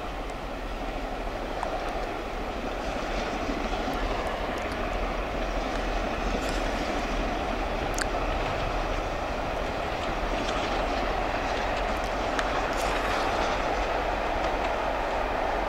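LMS Princess Royal class 4-6-2 steam locomotive No. 6201 Princess Elizabeth running at speed with a train of coaches, heard at a distance as a steady rumble of the train on the rails. It grows a little louder over the first few seconds, with a few faint clicks.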